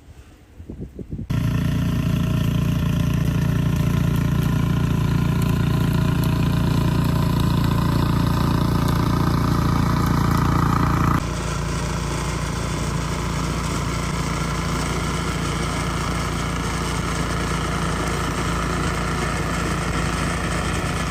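An engine running steadily at a constant speed. It sets in abruptly about a second in and drops a little in level about eleven seconds in.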